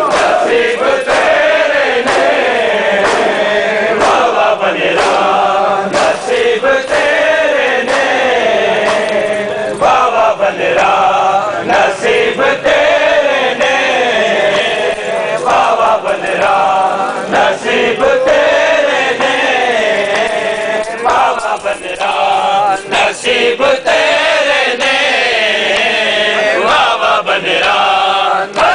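A crowd of male mourners chanting a Muharram mourning chant in unison, the melody rising and falling, with sharp slaps scattered through it.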